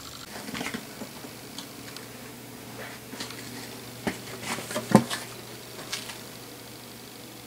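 Light footsteps and scattered taps and knocks of someone walking about with the camera in hand, the loudest knock about five seconds in, over a faint steady hum.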